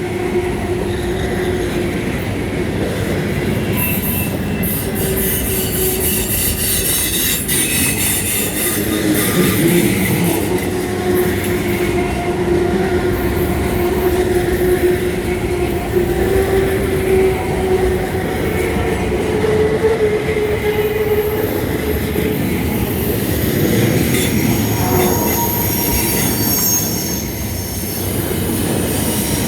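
Train cars rolling by on a curved connection track, the wheels squealing against the rail in drawn-out tones over a steady rumble of wheels on rail.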